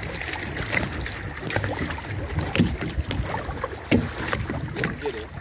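Water sloshing against the hull of a small boat, with irregular knocks and clicks and some wind on the microphone.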